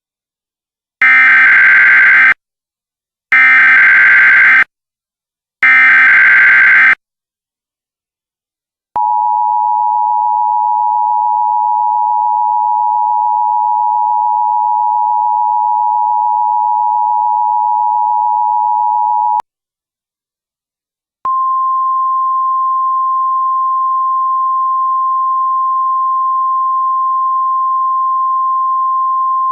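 Emergency Alert System SAME header: three short, identical bursts of warbling data tones. Then the two-tone EAS attention signal, held steady for about ten seconds. After a brief gap, a single-pitch NOAA Weather Radio warning alarm tone that carries on past the end. This is the alert sequence that comes before a warning message.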